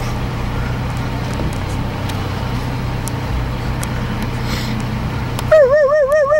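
Steady vehicle engine hum and road noise, heard from inside a car's cabin. Near the end a louder warbling tone cuts in suddenly and keeps wavering about three times a second.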